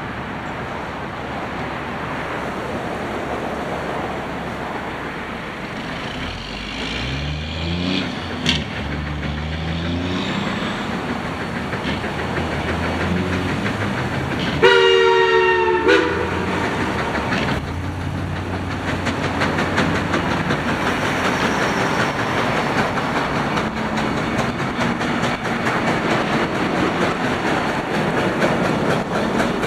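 Durango & Silverton No. 493, a K-37 class 2-8-2 steam locomotive, drifting slowly toward the listener with a steady rush of steam and running noise. About halfway through it gives one chime whistle blast lasting about a second and a half. Near the end its exhaust breaks into rapid, even puffs.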